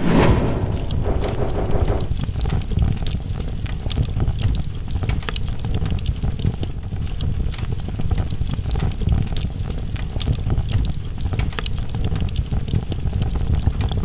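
Fire-like sound effect: a steady low rumble with dense crackling throughout, and a brief tone layered in during the first couple of seconds.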